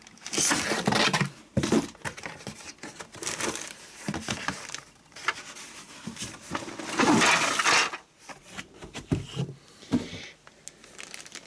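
A sealed toy accessory box being opened and its packaged parts handled: irregular rustling, scraping and light knocks, with a longer, louder rustle about seven seconds in.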